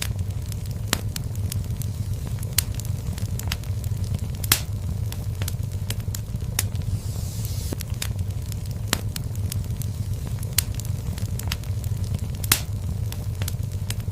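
Wood fire burning in a fireplace: a steady low rumble of flames under irregular sharp crackles and pops, with two louder snaps, one about four seconds in and one near the end.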